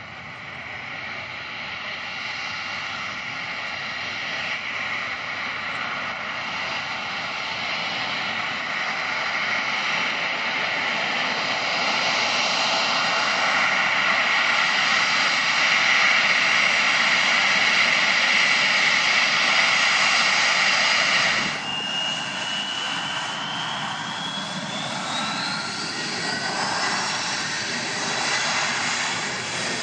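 Airbus A320-family twin-jet airliner on its takeoff roll, its engines at takeoff power growing steadily louder as it accelerates and lifts off. About 21 seconds in the sound cuts abruptly to a quieter Embraer regional jet, with an engine whine rising in pitch.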